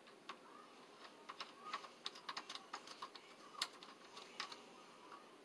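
Faint, irregular small clicks and taps of plastic parts being handled as a ring light's centre mount is fitted and adjusted by hand, the loudest click a little past halfway.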